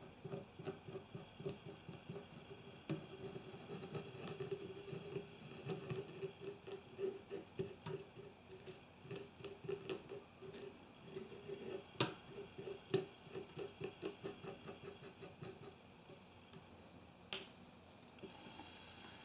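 Quick back-and-forth scraping and rubbing on the metal parts of a Konica EFJ compact film camera while rust is being removed, with many small clicks. A sharper click about twelve seconds in, another near the end, and the rubbing stops shortly before the end.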